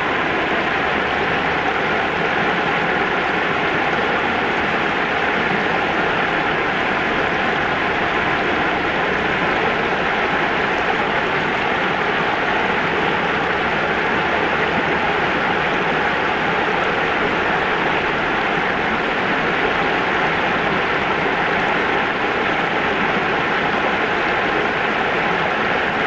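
Shallow river water spilling over a low weir and through small rapids: a steady, even rush of running water.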